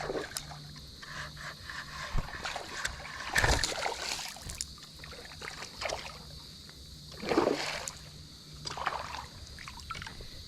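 Creek water splashing and sloshing as a hooked bass fights on the line, with two louder splashes about three and a half and seven and a half seconds in.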